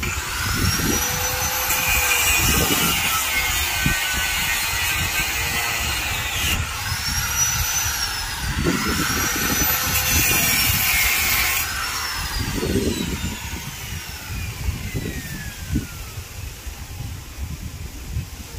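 Handheld electric power tool running in spells: its motor spins up to a high whine and holds. It stops about six seconds in, runs twice more in short spells, then winds down slowly over several seconds near the end.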